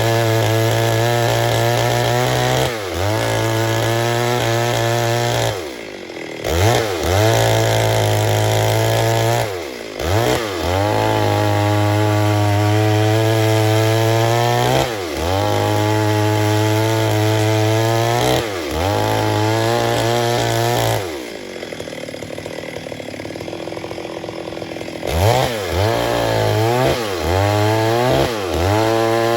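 Stihl MS 382 two-stroke chainsaw running at high speed, as when cutting wood. The throttle is let off and picked up again several times, the pitch dipping and recovering each time. About two-thirds through it drops to a quieter idle for a few seconds, then is revved in short blips near the end.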